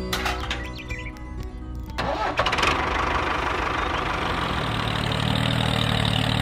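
Background music, then about two seconds in a small motor starts up and runs steadily with a dense mechanical noise, driving the belts of a toy brick-making machine.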